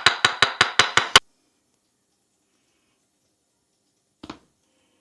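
Rapid, even hand-tapping strikes of a head massage, about five a second, that stop abruptly about a second in. A brief double knock follows near the end.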